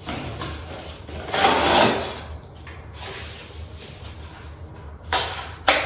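A small cardboard box being opened and its packaging handled: cardboard sliding and rustling, loudest about a second and a half in, with more scraping and a sharp click near the end.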